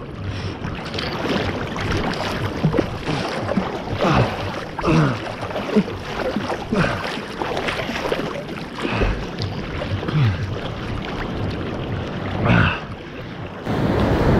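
Seawater sloshing and splashing right at the microphone, held at the surface of the sea, with irregular splashes throughout.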